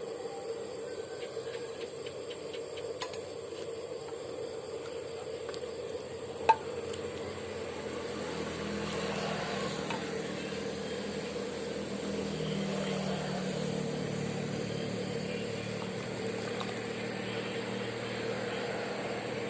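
Kitchen handling sounds while the boat-noodle broth is prepared: scattered small clicks of utensils and containers over a steady hum, with one sharp clink about six and a half seconds in. From about eight seconds a low rumble joins in and carries on.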